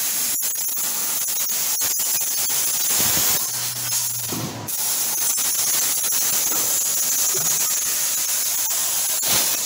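Hand-held plasma cutter cutting through the sheet-steel trunk floor: a steady hiss of the air-plasma arc, with a brief break a little before halfway through.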